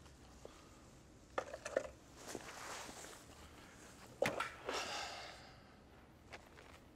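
Footsteps and light knocks on a hard floor, then a man sitting down on a plastic waiting-room chair: a sharp knock about four seconds in, followed by rustling of clothing and a bag.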